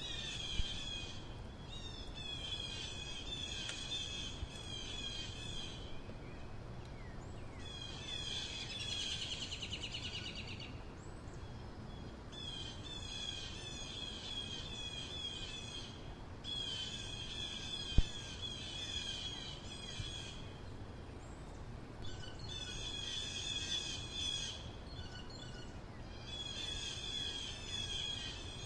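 A crow chattering in repeated bouts of rapid, quickly repeated calls, each bout lasting two to three seconds with short pauses between, over steady low background noise. A single sharp knock comes about two-thirds of the way through.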